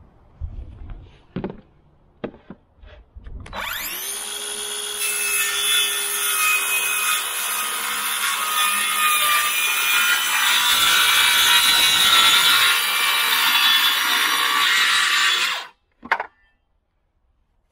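Stanley FatMax V20 18V cordless circular saw with a 165mm blade cutting 8mm melamine-faced chipboard. A few handling knocks come first, then the motor spins up about three and a half seconds in and the blade cuts through the board for about ten seconds. The sound stops suddenly, followed by one short click.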